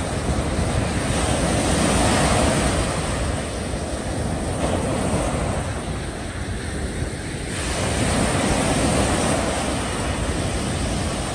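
Small waves breaking and washing up a sandy beach, surging louder about two seconds in and again near the end, with wind rumbling on the microphone.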